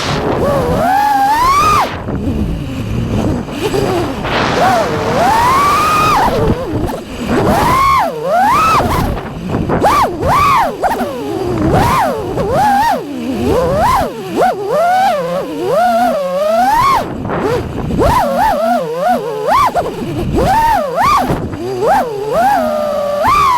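FPV racing quadcopter's brushless motors whining, their pitch swooping up and down constantly as the throttle is worked in freestyle flight.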